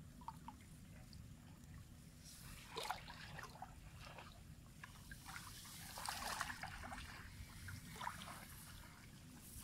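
Legs wading through shallow muddy water in a flooded rice paddy: faint sloshing and splashing in short bursts every couple of seconds, over a low steady rumble.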